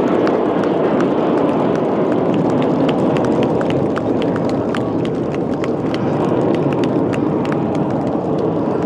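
Crowd applauding, with many irregular claps over a steady rushing roar.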